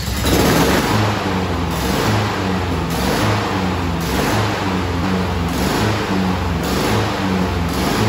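Honda GCV170 single-cylinder lawn mower engine on a new HRN216 running with a surging, rough idle, its speed rising and falling about once a second as the governor hunts. The owner traces this to a clogged pilot (slow-speed) jet in the carburetor, which leaves the engine running lean once the auto choke is fully open.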